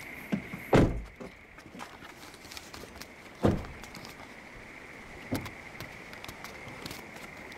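Three dull thumps around a parked car, the loudest about a second in and the others near the middle and a little after, with light clicks and scuffs between them over a steady faint high hum.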